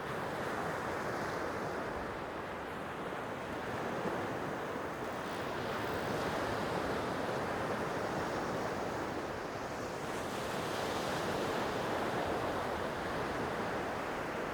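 Sea waves washing on the shore, a steady hiss that swells and eases every few seconds.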